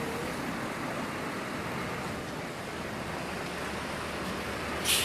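Steady roadside traffic noise, a continuous rush with wind on the microphone and no horn sounding. A short, sharp burst of hiss comes near the end.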